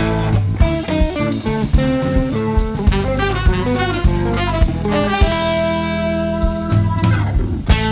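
Jazz-rock band playing: a tenor saxophone carries the line over bass, keyboard and drum kit, holding one long note in the second half.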